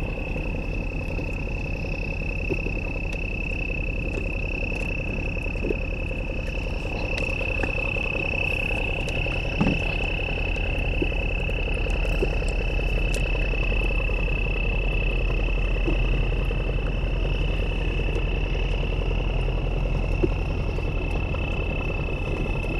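Small boat engine idling steadily, with a steady high-pitched tone over it and a few faint clicks.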